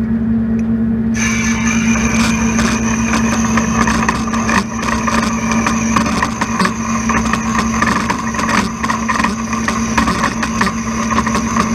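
Steel being cut for relief slots: a steady machine hum throughout, joined about a second in by a loud, dense crackling hiss with a thin high whistle and many sharp clicks. The sound stops abruptly at the end.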